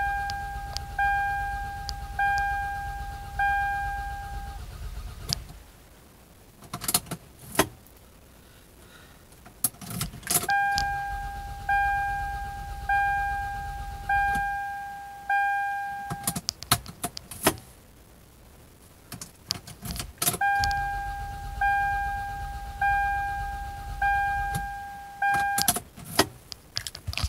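Toyota Camry engine being cranked by the starter and failing to catch, in three tries of about five to seven seconds with pauses between. A dashboard chime dings about once a second during each crank. It is a no-start after a fuel pump replacement with the tachometer not moving, which the owner takes for a likely failed crankshaft or camshaft position sensor.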